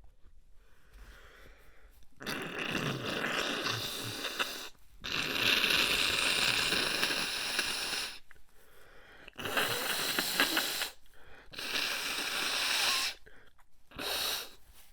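A person blowing their nose hard in five separate blows: four long ones of about one and a half to three seconds, then a short one near the end. This clears the nose after a sneezing fit.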